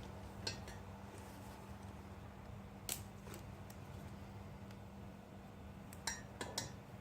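A few light metallic clinks and clicks, small metal objects knocking together four times, over a steady low hum.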